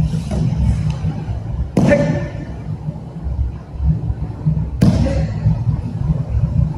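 Aikido falls on the dojo mat: two sharp slaps of a body landing on the mat, about three seconds apart, each with a short ring, over a steady low rumble.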